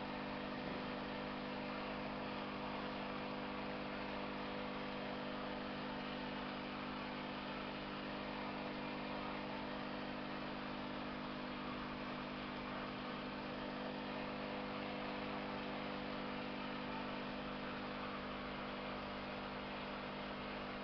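Aquarium internal power filter running: a steady electric motor hum over an even hiss of water moving through the tank.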